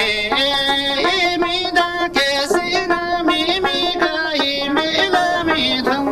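Background music with a melody that moves up and down in steps.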